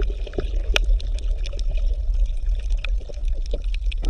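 Underwater water sound: a steady low rumble with many scattered small clicks and pops.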